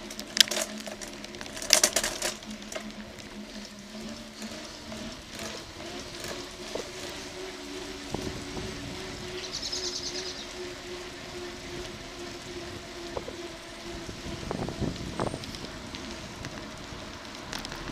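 Bicycle riding along a paved cycle path: tyres and frame rattling, with two sharp knocks from bumps in the first two seconds and a few more around fifteen seconds in.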